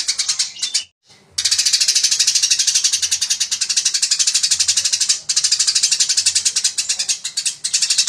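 Eurasian tree sparrow giving its fast, dense fighting chatter: rapid high chips run together, many a second, with a brief break about a second in.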